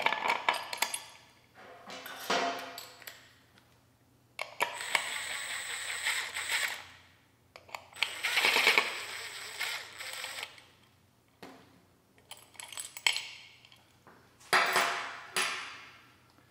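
Ratchet wrench clicking as it turns the screw of a three-jaw bearing puller, with metal-on-metal clinks from the puller and the aluminum end bell. It comes in about seven bursts of one to two seconds each. The puller is drawing the Hyper9 motor's factory end bell and its support bearing off the shaft.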